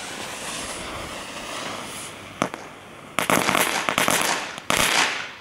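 A small Weco Crackling Bits ground firework hissing as it burns, with one sharp pop about two and a half seconds in. It then breaks into rapid crackling for about a second, with a last burst of crackling near the end.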